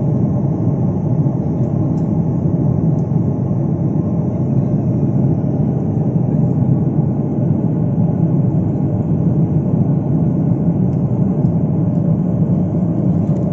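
Steady cabin noise of a jet airliner in cruise, heard from a window seat: engine and airflow noise running evenly without change, heaviest in the low range.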